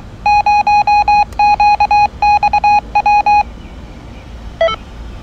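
An amateur radio repeater's Morse code identification, heard through a Yaesu handheld transceiver's speaker: a buzzy beep at one pitch keyed in short and long pulses, in groups, ending about three and a half seconds in. About a second later comes one very short beep that steps in pitch.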